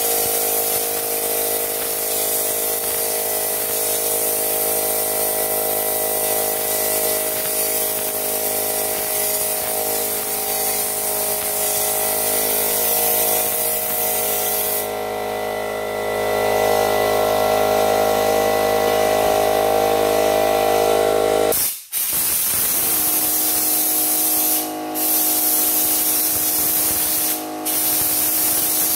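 Air-powered schutz-type spray gun spraying bedliner in a steady hiss, with an air compressor humming underneath. The sound cuts out for a moment about two-thirds of the way through. Near the end the hiss stops briefly three times as the trigger is let off.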